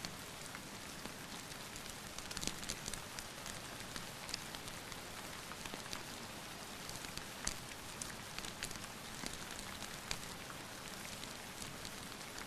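Steady rain hiss mixed with a wood fire crackling in a fireplace, with irregular sharp pops and snaps throughout.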